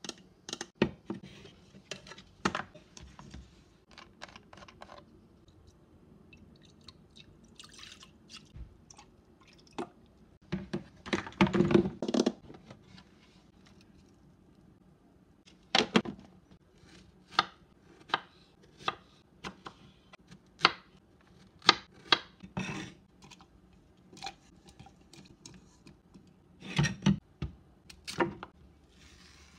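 Scattered close-up taps, knocks and clicks of hands handling a plastic blender cup, a plastic tub of strawberries and a kitchen knife on a wooden cutting board, with a busier flurry of knocks about a third of the way in.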